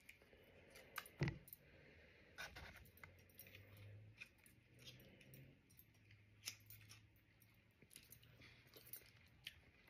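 Faint, scattered clicks and light clinks of oyster shells and utensils being handled while eating, the sharpest about a second in.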